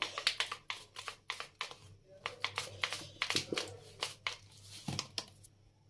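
Cardboard spice packet being shaken over a steel plate: a quick, irregular run of light crinkly clicks and rustles as chaat masala powder sprinkles out, stopping about half a second before the end.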